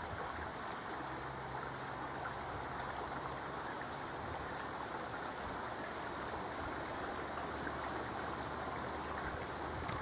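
Steady rushing of a flowing brook, an even noise throughout, with a faint low hum underneath.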